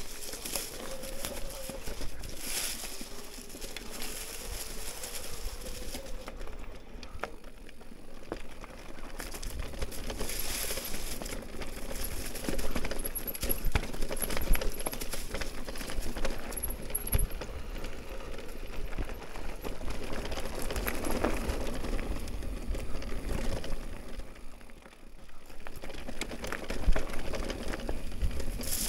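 A Canyon electric mountain bike on a leaf-covered dirt trail: the tyres crunch over dry leaves and dirt while the chain and frame rattle over bumps. The Shimano EP8 mid-drive motor gives a quiet whine, clearest in the first few seconds.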